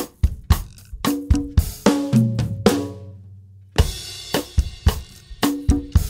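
Drum kit with steelband engine-room percussion playing a groove of snare, bass drum and cymbal hits. About three seconds in, everything stops for just under a second, then comes back in on a loud cymbal crash.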